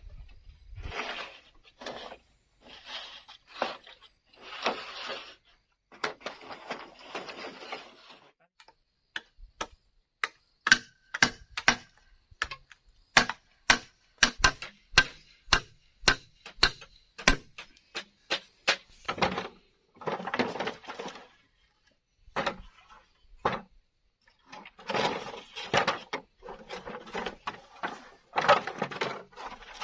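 Hand tools working bamboo: a series of rasping strokes, then a fast run of sharp wooden knocks from about 9 to 19 seconds in, then more rasping strokes.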